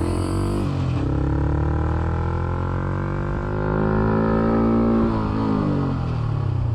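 Yamaha MT-15's single-cylinder engine pulling under load, its pitch climbing slowly for about four seconds, then dropping away about five seconds in as the throttle eases.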